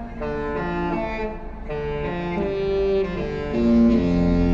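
Disney Fantasy cruise ship's musical horn playing a tune: a melody of short pitched notes, then from about four seconds in a louder, lower note held long.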